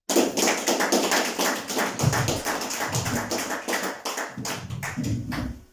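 A small audience applauding, many hands clapping densely together, stopping near the end.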